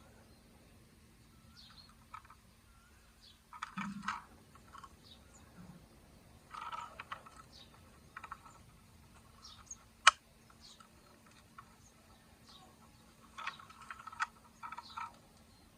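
Quiet handling noise: small clicks and light rustles in three short clusters, with one sharp click about ten seconds in, as plastic toy cars and their packaging are handled.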